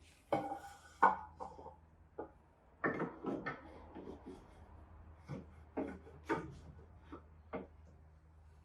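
Support blocks being set down and shifted into place: a series of irregular knocks and scrapes, the sharpest about a second in.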